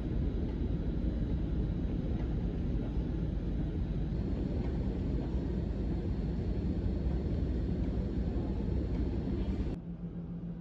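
Steady low rumble with a faint hum running through it, dropping abruptly to a quieter, thinner hum about a second before the end.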